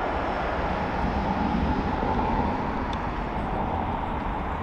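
Airbus A321's twin jet engines at approach power, a steady rumble and hiss as the airliner flares just above the runway.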